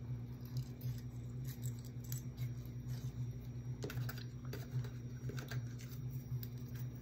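Light clicks and ticks of thin wire and a small metal star being handled on a plastic craft mat, scattered and irregular, over a steady low hum.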